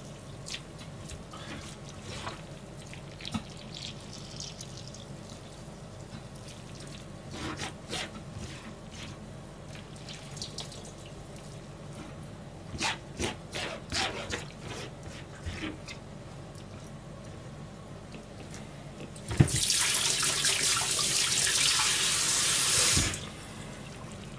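Hands squeezing water out of finely chopped greens on a plastic cutting board: faint wet squishes and drips. About 19 seconds in, a kitchen tap is turned on and runs strongly into the sink for about three and a half seconds, then shuts off abruptly.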